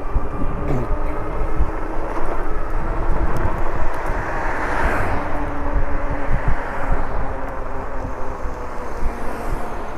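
Wind rumbling on the microphone and road noise while riding a Lectric e-bike, with a passing vehicle's noise swelling up and fading away around the middle.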